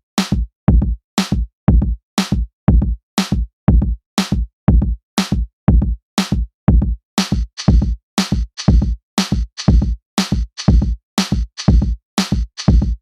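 Background music: a steady electronic drum-machine beat of kick and snare, about two beats a second, with a hissing cymbal layer joining about seven seconds in.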